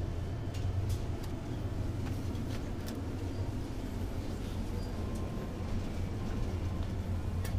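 Steady low hum of a supermarket's background noise, with a few faint clicks and knocks.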